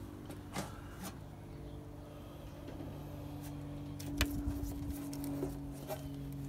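Clicks and knocks of test wires and a plastic connector plug being handled at a Miata's cooling-fan connector, the loudest about four seconds in, over a steady low hum that starts about a second in.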